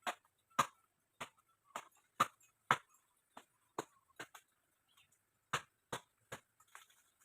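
Blade chopping at tree branches: sharp wooden strikes about two a second, with a short break about two-thirds of the way through.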